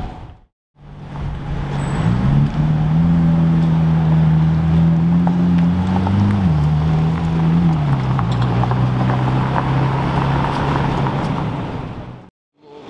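A car engine running at steady revs after a brief silence: its pitch steps up about two seconds in, holds, and drops back partway through, then the sound fades out near the end.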